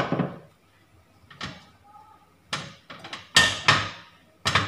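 Metal cookware, a frying pan and a wok, knocking and clattering on a gas stove's burner grates: a series of separate clunks with a short ring after each, the louder ones in the second half.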